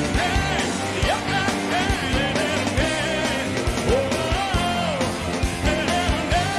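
A rock band playing live: a male lead vocal over drums keeping a steady beat, with saxophone in the band.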